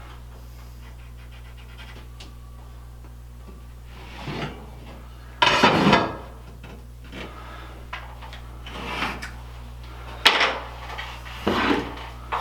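Pieces of MDF shelving being handled, with scraping and rubbing noises, the loudest about five and a half seconds in, and a sharp knock about ten seconds in, over a steady low hum.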